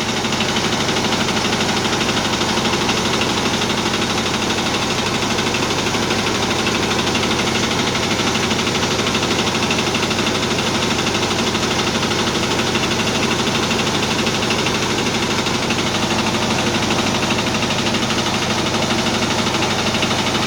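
Simple rice milling machine running steadily: a continuous, even mechanical drone with a fast, regular vibration.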